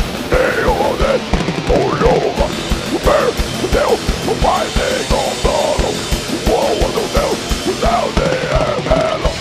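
Heavy metal band playing live: a fast, steady kick drum under a dense wall of band sound, with harsh, shouted vocals over it.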